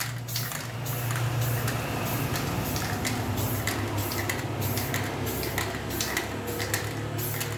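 RJ London aerosol spray-paint can spraying in one long continuous hiss, laying a thin coat of paint.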